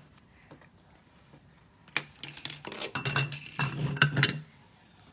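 Quick run of small clicks, clinks and rubbing from hands handling candy and a utensil at a tabletop, starting about two seconds in and stopping shortly before the end.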